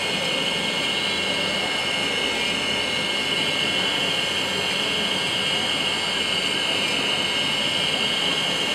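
High-speed spindle of a GZ5 5-axis dental CAD/CAM milling machine running with a thin burr milling teeth out of a disc blank: a steady high-pitched whine and hiss that does not change.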